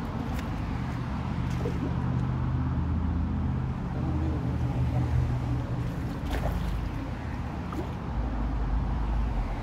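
Low, steady vehicle rumble, with a few faint clicks.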